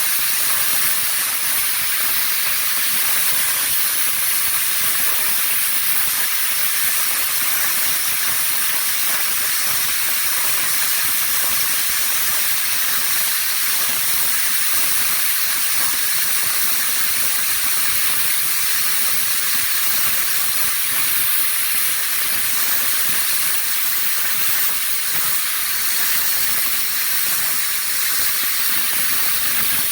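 Plasma cutter running: a steady, loud hiss of the arc and compressed air blowing through the torch, unbroken throughout.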